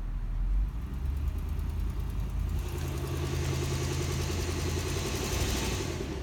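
Lexus LX470's 4.7-litre V8 idling in drive with a ticking noise. About two and a half seconds in, a louder hissing layer joins the idle and lasts until near the end.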